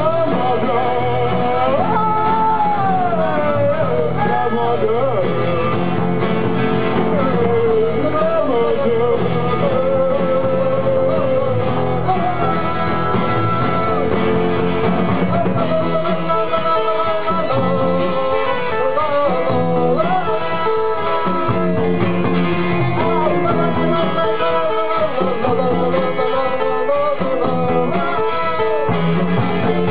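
A rock band playing live: electric guitars and drums with a lead singer, heard loud through the recording's own microphone.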